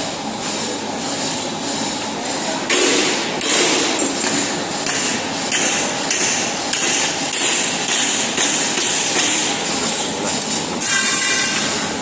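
Metal-workshop din: repeated hammer blows and clanging on steel over a steady machinery noise, heavier from about three seconds in. Near the end there is a brief metallic ringing.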